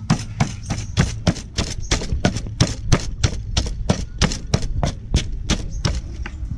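Wooden pestle pounding long beans and chillies in a mortar: steady thuds about three a second that stop about six seconds in.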